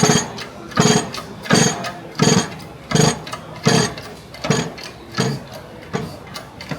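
Hydraulic shop press being worked by hand: a steady run of about nine metallic clanks, roughly one every three quarters of a second, as the shaft is pressed out through its bearings.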